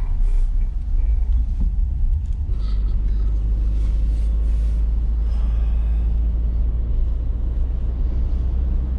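Steady low road and engine rumble heard inside the cabin of a Renault van driving at speed on a motorway.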